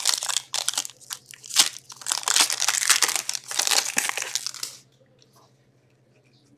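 A hockey card pack's wrapper crinkling and tearing as it is ripped open and handled, a dense crackle that stops about five seconds in.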